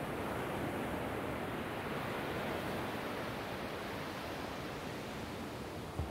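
Ocean surf breaking and washing up a sandy beach, a steady rushing wash. A brief low thump comes near the end.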